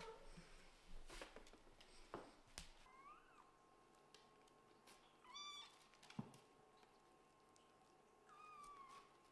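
Kittens mewing: three short, faint, high-pitched mews, about three, five and a half and eight and a half seconds in.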